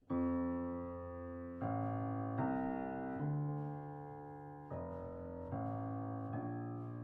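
Small motion-picture orchestra playing slow, solemn music: the piece begins suddenly with a series of held chords, a new chord struck about every second and fading before the next.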